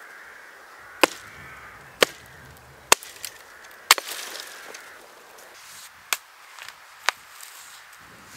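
An axe chopping into the base of a thin sapling: four sharp, loud blows about a second apart. Two lighter knocks follow about a second apart later on.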